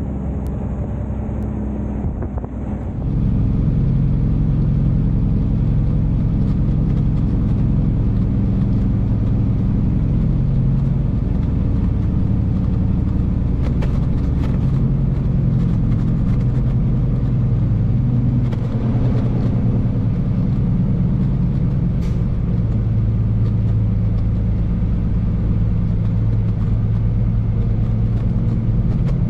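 Semi truck's diesel engine running steadily under way. It grows louder about three seconds in.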